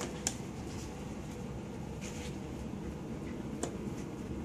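Steady low hum of running equipment, like a fan, with two faint clicks, one just after the start and one near the end.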